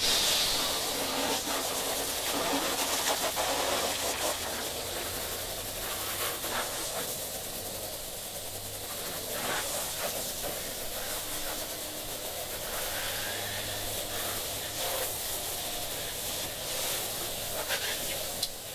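Steady hissing of liquid spraying onto the boat's fiberglass, as when the hull is rinsed down after muriatic acid, with a few faint knocks.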